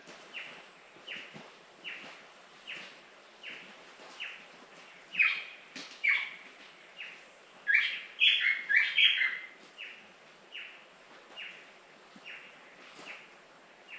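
Wild birds calling in the forest: a short falling note repeats about every three-quarters of a second, joined by louder chirps about five seconds in and a quick run of notes around eight seconds in.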